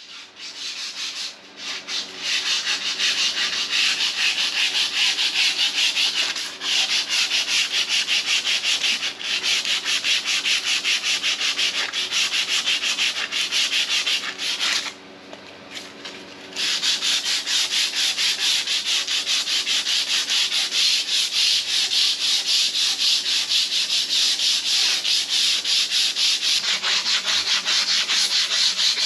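Cast-iron table saw top being hand-sanded with a used sanding disc: rapid, even back-and-forth scrubbing strokes of abrasive on iron, taking off surface rust. The scrubbing pauses briefly about halfway through, then resumes.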